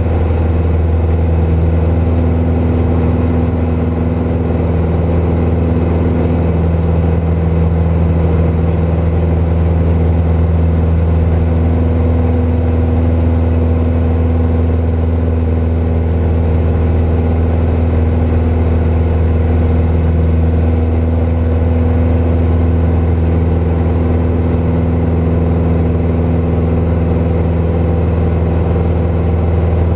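Piper PA-28 light aircraft's piston engine and propeller droning steadily, heard from inside the cockpit as the plane climbs.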